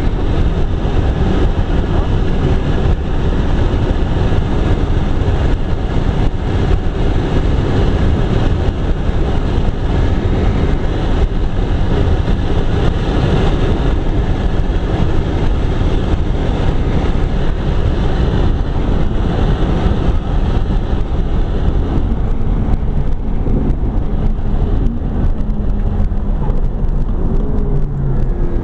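McLaren 12C's twin-turbocharged V8 heard from inside the cabin at racing speed, under dense tyre and road noise. In the last few seconds the engine note rises and falls more plainly.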